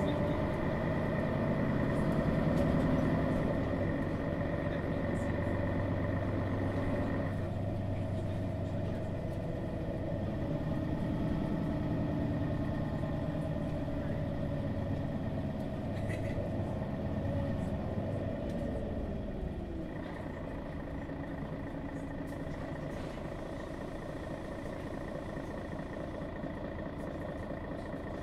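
Diesel engine of a Mercedes-Benz Citaro G articulated city bus, a Daimler OM 457 hLA, running with a steady whine over the engine note. The whine drops away for a stretch in the middle and the sound eases slightly in the last third.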